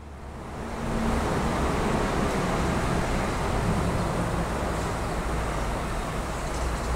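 Steady low rumble of ambient background noise with a hiss over it, fading in over the first second.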